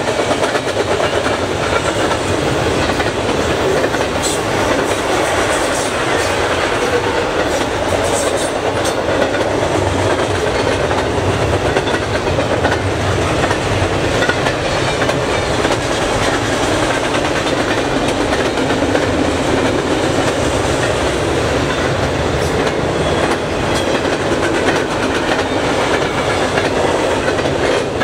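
Double-stack intermodal freight cars rolling past: a steady rumble of steel wheels on rail, with rapid clickety-clack as the wheels cross the rail joints.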